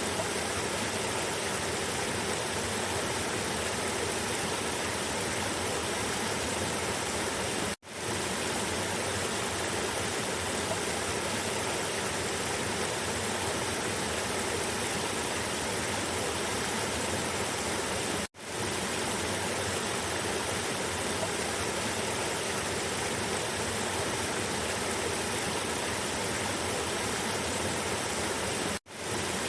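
Cascading river water rushing steadily over rocks, a dense, even sound. It cuts out briefly three times, about ten seconds apart, each time fading quickly back in.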